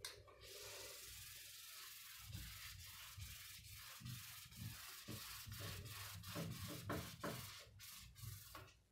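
A whiteboard being wiped clean: a steady rubbing hiss as an eraser scrubs back and forth across the board, with irregular soft knocks under it, stopping shortly before the end.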